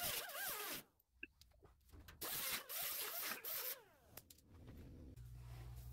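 Several short rasping bursts of a small hand-held tool scraping against the steel of a car's inner wheel well, with faint wavering squeals. A low steady hum starts near the end.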